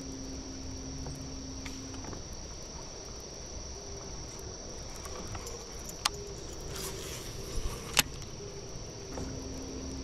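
Insects droning steadily at a high pitch over a low rumble, with a steady low hum that stops about two seconds in and comes back near the end. Sharp clicks sound about six and eight seconds in, the second the loudest.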